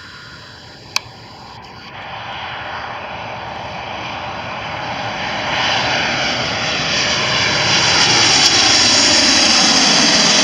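Jet engine noise of a Boeing 737 airliner on landing approach, growing steadily louder over several seconds as it comes close overhead, then holding loud near the end. A single brief click about a second in.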